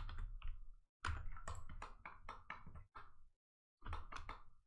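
Computer keyboard keys and mouse buttons clicking in quick runs of taps, with dull low thumps underneath. The sound drops out to silence between runs, near the middle and again near the end.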